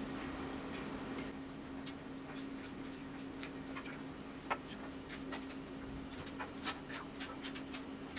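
Faint, irregular small metallic clicks and ticks of a precision screwdriver turning the tiny front-ring screws of a Nikon 24-70mm f/2.8 zoom lens, more of them in the second half, over a steady low hum.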